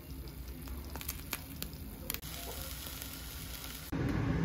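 Eggs frying in oil in a nonstick pan: a steady sizzle with scattered crackling pops. Near the end a louder, fuller sizzle takes over.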